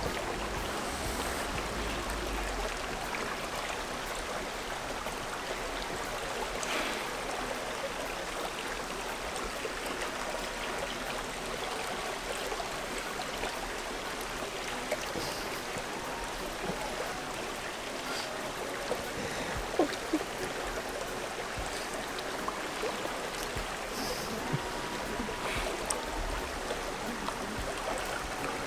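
Steady rush of a stream flowing over rocks, with a few short sharp clicks about two-thirds of the way through.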